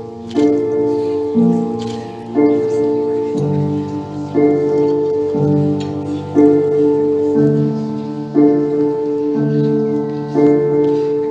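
Instrumental music without singing: held chords that change about once a second in an even, steady pattern.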